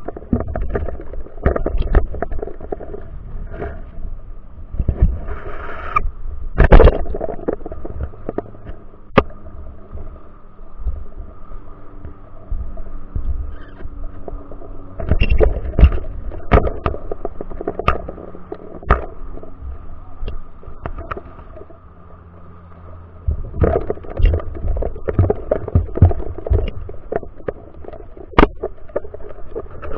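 Muffled underwater sound picked up by a GoPro inside its waterproof housing: a low, uneven rumble of moving water with irregular clicks and knocks.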